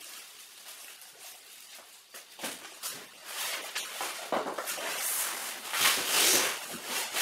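Cardboard and packaging rustling and scraping as a large shipping box is handled and its contents are pulled at. It comes in irregular bursts that grow louder through the second half.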